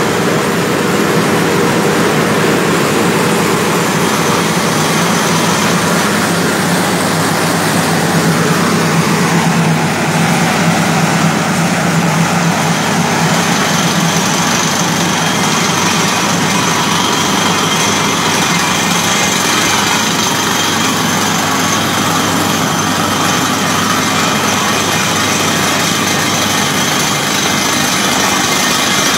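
Truck-mounted water well drilling rig running under test: its engines and air compressor make a steady, loud machinery drone, with a high hiss coming in about halfway through.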